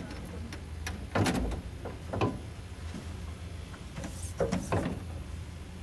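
A few short knocks and rattles over a low steady hum. The loudest comes about a second in, another a second later, and a quick pair near the end.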